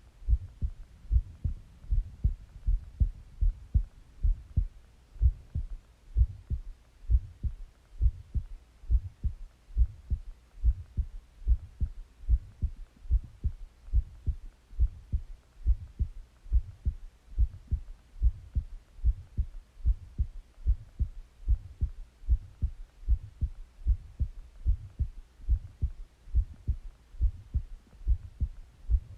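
A human heartbeat heard close up at the chest: low thumps in a steady, even rhythm, a little over one beat a second.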